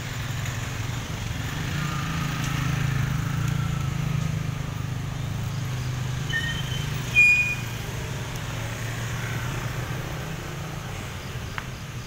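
Road traffic engines running: the low rumble of a bus and motor scooters, swelling for a few seconds then holding steady. A brief high-pitched beep stands out about seven seconds in.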